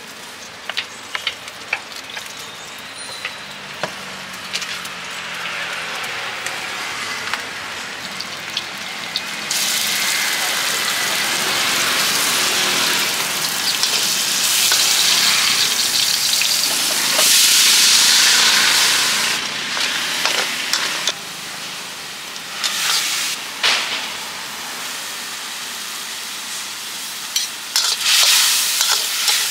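Food stir-frying in a hot wok, with metal ladle clicks and scrapes against the pan. It starts as a soft sizzle with light clicks; about ten seconds in, a loud sizzle sets in and holds for several seconds, then falls back to shorter bursts of sizzling between clicks.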